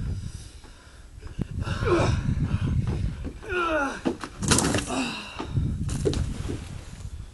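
Wind rumbling on the camcorder microphone, a falling-pitch yell, then a heavy thud about four and a half seconds in as a body lands on a wooden board laid over stacked tyres.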